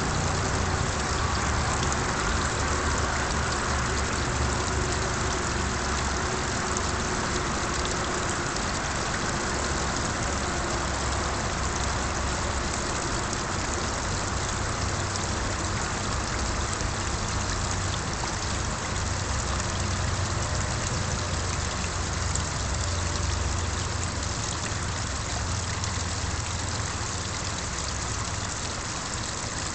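Small garden pond waterfall splashing steadily into the pond, with a low rumble underneath.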